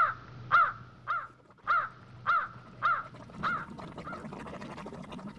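A bird calling over and over, about two calls a second, each call a short pitched note that rises and falls. The calls grow fainter and stop about four seconds in.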